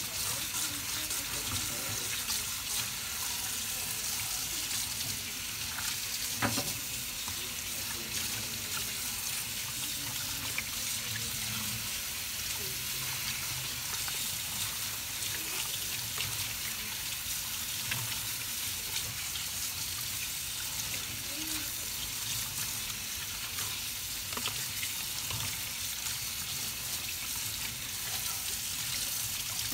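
Tap water running and splashing onto plastic paint palettes in a stainless steel sink as they are rubbed clean by hand, a steady spattering hiss. A few light knocks as the palettes bump together.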